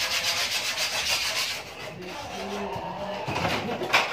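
Phone handling noise: fingers rubbing and scraping over the microphone as the phone is moved about, strongest in the first two seconds, then softer, with a sharp knock near the end.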